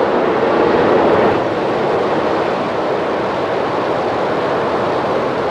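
Falcon 9 first stage's nine Merlin engines firing during liftoff and early climb: a loud, steady rush of rocket exhaust noise, heaviest in the low-middle range.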